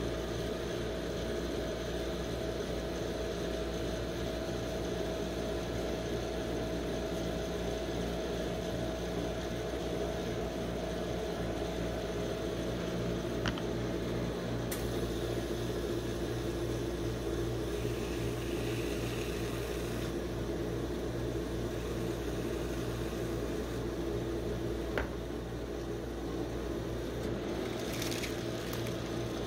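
Steady hum of a rolled-ice-cream machine's refrigerated cold plate running, with its compressor and fan. Two faint clicks about halfway and later on, and a brief hiss near the end.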